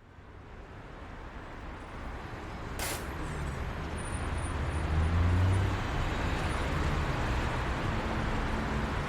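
Opening of a hip-hop song: a steady wash of noise fades in, with a brief swish about three seconds in and a few low bass notes in the middle.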